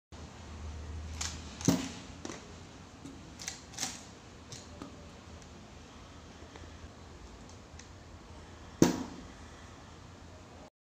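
Handling noise of a homemade cardboard watch-box piggy bank: several light clicks and knocks in the first few seconds, then a single louder knock about nine seconds in.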